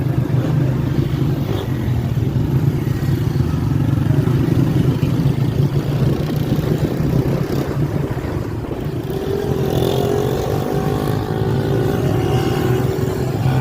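Motorcycle engine running steadily on the road, with a second engine note rising in pitch from about nine seconds in.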